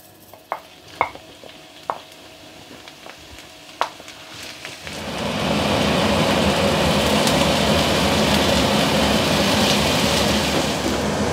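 A few light clicks, then about five seconds in a loud, steady sizzle starts as sliced bitter gourd goes into a frying pan of hot oil with chillies, shallots and garlic and is stir-fried with a wooden spoon.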